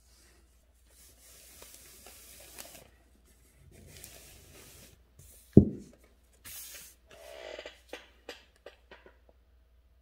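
Calligraphy paper being slid and handled on a table, a soft rubbing hiss in stretches. There is one dull thump about halfway through, the loudest sound, and a few light taps near the end.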